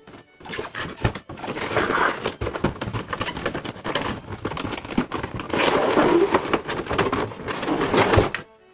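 Clear plastic blister packaging and a cardboard figure box being handled and pulled apart: dense crinkling and crackling with many small clicks, loudest about two seconds in and again from about five and a half seconds, stopping just before the end.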